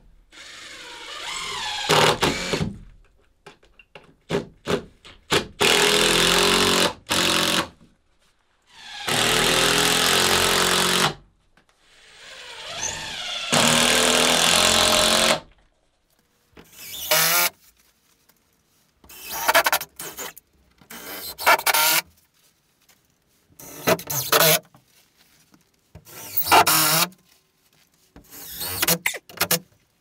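Handheld power drill-driver driving screws to fasten OSB boards, in about a dozen separate runs. The first runs last two to three seconds and some build up as they start; the later ones are shorter, about a second each.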